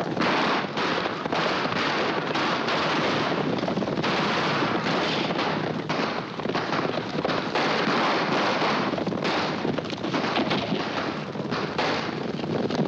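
A running gunfight on horseback: repeated gunshots over the hoofbeats of galloping horses.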